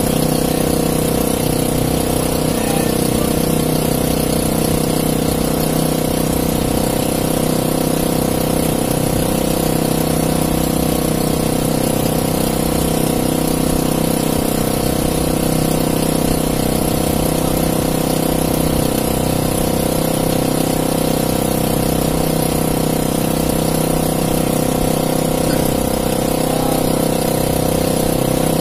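A small engine aboard an outrigger fishing boat running steadily at an even speed, with no change in pitch.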